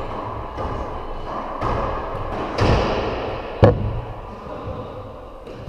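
Racquetball rally: the hollow rubber ball cracking off racquets and the court walls, each hit echoing in the enclosed court. The sharpest, loudest crack comes a little over three and a half seconds in.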